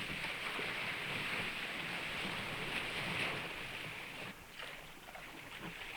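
Surf and rushing water around a sea kayak, a steady hiss that eases off about four seconds in.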